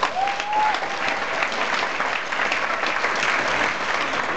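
A theatre audience applauding steadily, with one short rising whoop from someone near the start.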